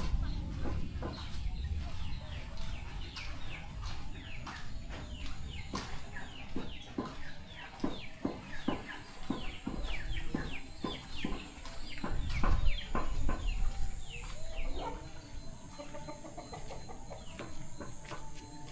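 Village chickens calling: many short, falling peeps and clucks in quick succession, with a few lower clucks near the end.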